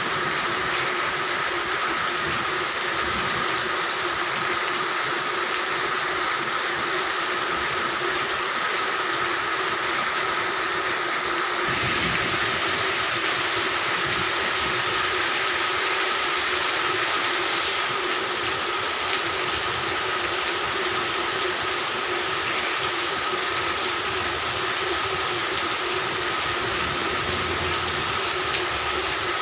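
A dense chorus of frogs calling continuously over steady rain, holding several constant pitches without a break.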